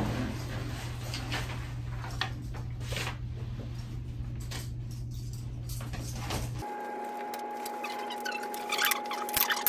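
Steady low electrical hum with soft rustling and small clicks of handling as the EKG equipment is readied. About two-thirds of the way in the hum cuts off abruptly and a faint steady higher tone sounds, with more rustling near the end.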